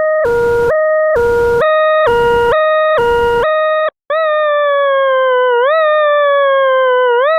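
Electronic siren sound: a two-tone hi-lo wail stepping between two pitches about twice a second, with hiss under some of the notes. It breaks off about four seconds in, then returns as a slowly falling tone that sweeps quickly back up every second and a half or so.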